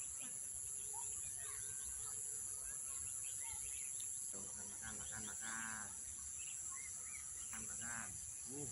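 Steady high-pitched insect chorus with scattered bird chirps, and a drawn-out distant animal call about halfway through and again briefly near the end.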